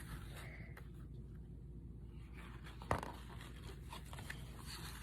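Faint rustling and handling of a picture book's paper pages, with a single sharp click about three seconds in.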